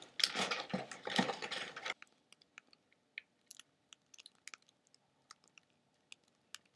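Hands handling a laptop hard drive and its metal mounting plate: scraping and clicking for about two seconds, then only scattered light metallic clicks.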